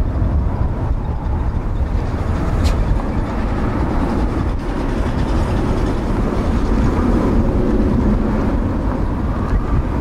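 Boeing 777-300ER jet engines running, heard as a steady low rumble that builds slightly in the second half, with strong wind buffeting the microphone.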